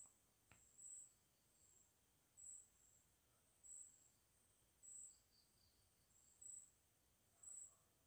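Near silence, with a faint high-pitched chirp repeating about once a second.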